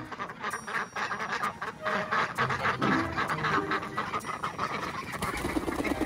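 A flock of domestic ducks quacking, with geese honking among them: many rapid calls overlapping throughout.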